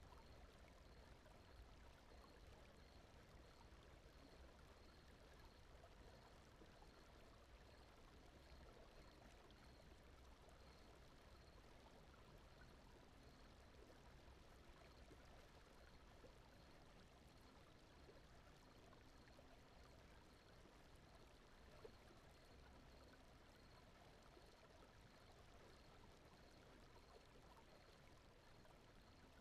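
Very faint, steady brown noise: an even, low rushing hiss with no change.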